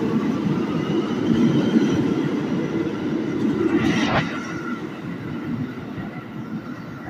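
R211 subway train pulling out of the station: its wheels rumble on the rails and its electric motors whine faintly, rising as it accelerates. About four seconds in there is a short, sharp rush of noise, after which only a quieter, more distant train rumble remains.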